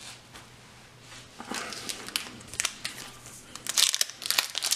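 Foil wrapper of a Yu-Gi-Oh booster pack crinkling as it is handled and torn open. It starts about one and a half seconds in and gets louder and denser near the end.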